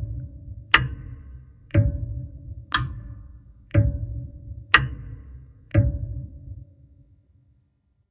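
Clock ticking about once a second, each tick sharp with a deep low rumble and a short ringing tone after it. The ticks stop a little before six seconds in and the last one fades away.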